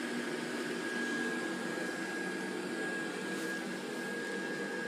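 Small electric blower fan of an airblown Christmas inflatable running steadily, a smooth hum with a thin high whine, keeping the inflatable dog blown up.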